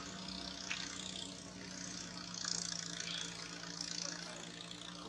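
Steady low engine hum, with a wavering high hiss over it and a few faint clicks.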